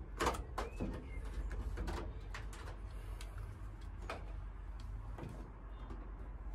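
Foil-faced sound-deadening mat being rolled and pressed onto a bare van's sheet-metal side panel with a small hand roller: scattered sharp crackles and clicks, the loudest just after the start, over a steady low hum.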